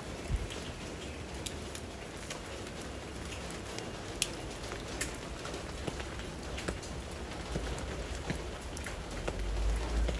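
Steady rain falling, with scattered sharp ticks of single drops and a low rumble swelling near the end.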